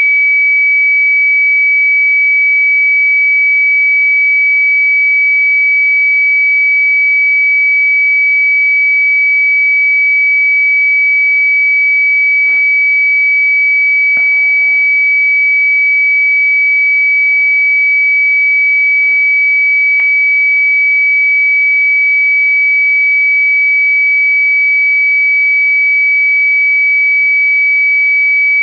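Radio transmitter (beacon) on 467.625 MHz received by a software-defined radio, heard as a steady, unbroken high-pitched tone over faint hiss.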